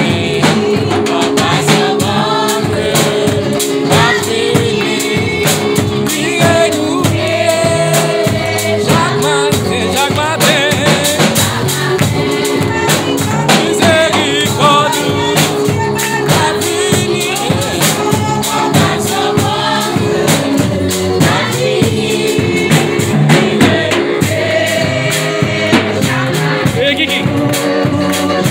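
A congregation singing a gospel hymn together, with many voices over a steady drum beat.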